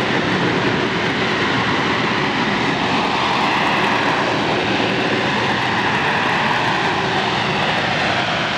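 AV-8B Harrier II's Rolls-Royce Pegasus turbofan running loud and steady, its jet noise wavering slightly in pitch.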